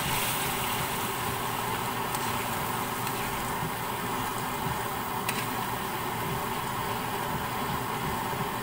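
Steady sizzling of tofu and vegetables cooking in sauce in a wok as they are stirred.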